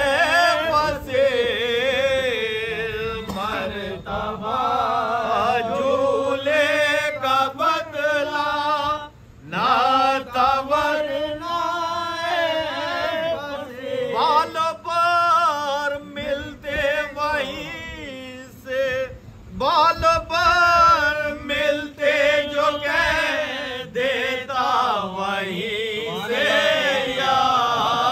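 A lead reciter and a group of men chanting soz, a Muharram lament, together in long wavering held lines, with two short breaks for breath about nine and nineteen seconds in.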